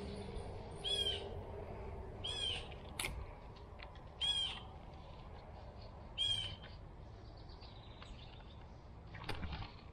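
A bird calling four times, a short high call about every two seconds, over a faint steady low rumble.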